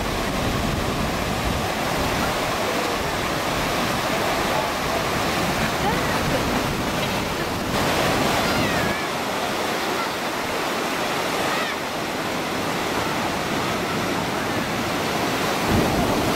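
Ocean surf breaking and washing over the shallows in a steady rush of water noise. The low rumble drops away abruptly about halfway through.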